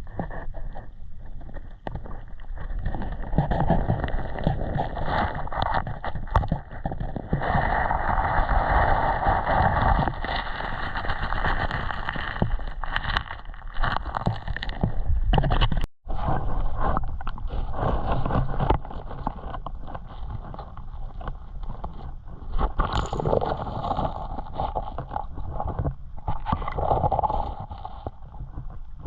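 Creek water sloshing and splashing around someone wading, with irregular scraping and knocking in the water and a brief dropout about halfway.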